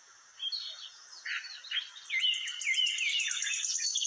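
Small birds chirping: quick gliding chirps from about half a second in, turning into a fast run of repeated sweeping notes in the second half.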